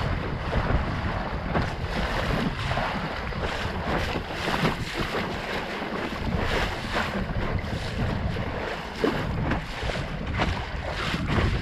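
Wind buffeting the microphone over the steady rush of water along a Sunfish sailboat's hull under way in choppy waves, with irregular splashes as the bow slaps through the chop.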